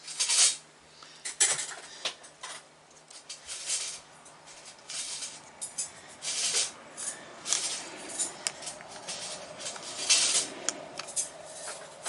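Irregular clicks, taps and short scraping rustles of fingers and a small screwdriver working inside an opened MacBook Air, working its SSD loose from the logic board.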